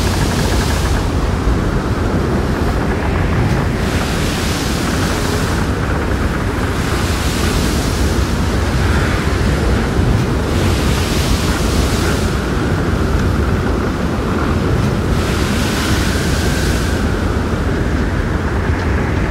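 Ocean surf: waves washing in over a steady rush, each swell rising and falling about every 3 to 4 seconds.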